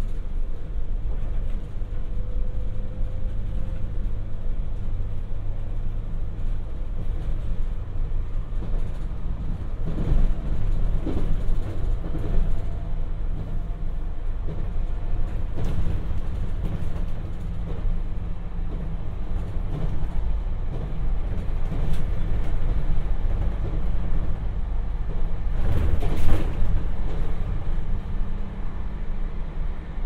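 Onboard running noise of a JR Hokkaido 721 series electric multiple unit, heard inside the passenger car: a steady low rumble from the wheels and running gear, with a few sharper knocks, the loudest about 26 seconds in.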